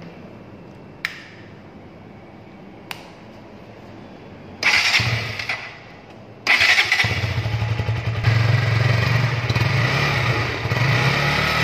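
Two clicks, then a KTM RC 200's single-cylinder engine is started: a short first burst of engine sound about five seconds in dies away, then a second later it fires and keeps running steadily through the stock BS6 underbelly exhaust.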